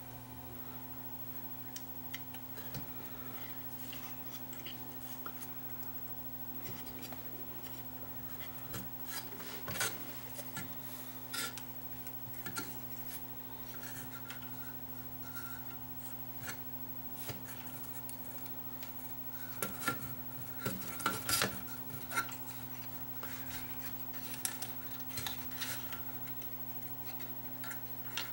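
Metal parts of a 1948 Marconi 238 tube radio's chassis being handled by hand: scattered light metallic clicks and clinks, busiest about ten seconds in and again around twenty to twenty-two seconds, over a steady low hum.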